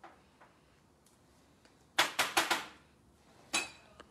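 Hard plastic card holder and its clear sleeve being handled: a quick run of four sharp crackling clicks about two seconds in, then a single sharp snap about a second and a half later.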